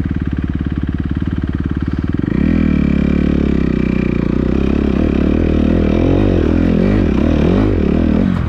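2014 Kawasaki KX250F four-stroke single-cylinder motocross engine running at steady low revs. About two seconds in it gets louder and the revs rise and fall over and over as the throttle is worked.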